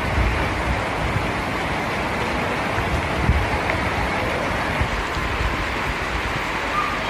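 Steady rain falling, with low gusts of wind on the microphone.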